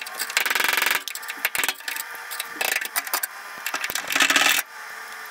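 Drill bit cutting into spot welds on sheet-steel truck bed and tail-panel metal, in rough, chattering bursts of under a second: the loudest near the start and about four seconds in, a shorter one around three seconds.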